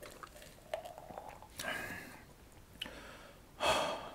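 Quiet mouth sounds of a man drinking and swallowing watermelon juice, with small wet clicks, then two breathy exhales. The second exhale, near the end, is the louder.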